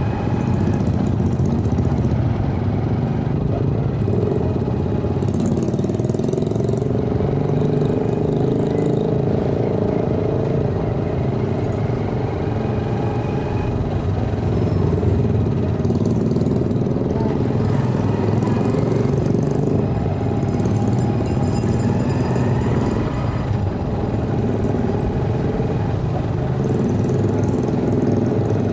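Steady engine drone and road noise from a vehicle driving slowly through city streets, with motorcycle-sidecar tricycles running just ahead.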